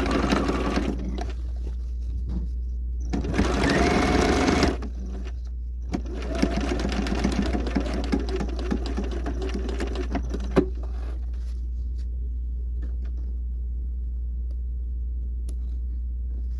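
Bernina 130 sewing machine stitching a denim jeans hem in short, slow runs through the thick folded seam, the loudest run about three to five seconds in. It stops with a sharp click about ten seconds in, leaving a low steady hum and a few faint clicks.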